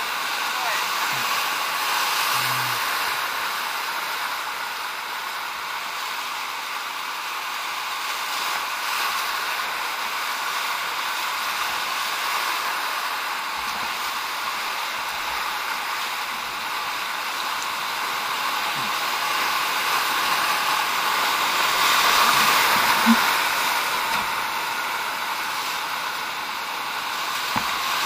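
Whitewater rapid rushing steadily around a raft running it, growing louder a little after twenty seconds in.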